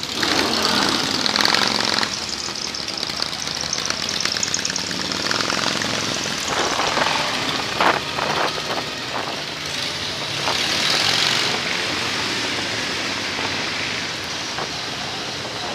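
Motorcycle engines running at low speed as a group of cruiser motorcycles rides together, heard from one of the bikes, with a steady rush of noise and a sharp click about eight seconds in.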